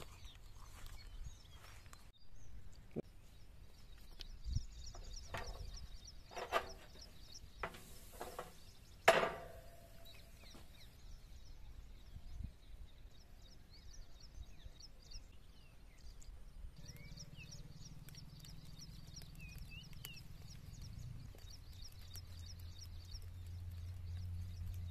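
Faint outdoor ambience with birds chirping. A few sharp knocks come in the first half, the loudest about nine seconds in. A low steady hum joins partway through and grows stronger near the end.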